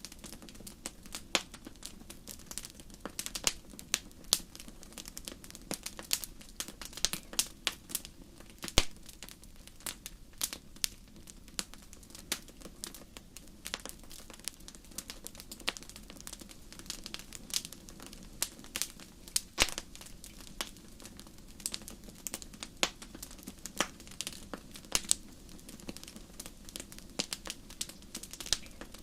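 Wood fire crackling: sharp irregular pops and snaps, several a second, over a soft steady hiss and low rumble of the flames.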